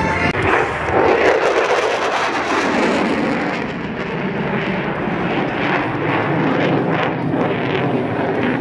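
Loud jet-engine roar of a Thunderbirds F-16 Fighting Falcon taking off and climbing, loudest in the first couple of seconds.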